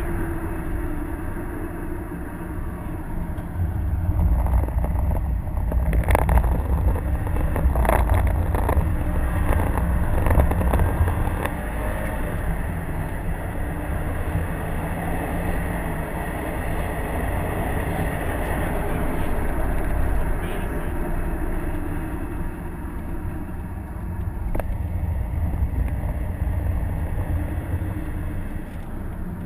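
2011 Subaru WRX's stock EJ255 turbocharged flat-four engine pulling under load, heard from inside the cabin together with tyre and road noise on a wet track. It gets louder from about 4 to 12 seconds in, with a couple of short knocks around 6 and 8 seconds.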